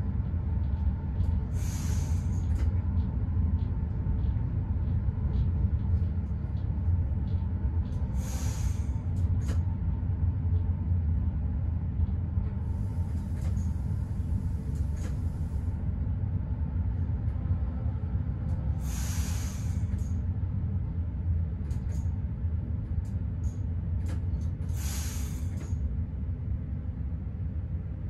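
Steady low rumble inside the cab of a Newag Dragon locomotive, broken by short hisses about every six seconds and one longer, higher hiss in the middle.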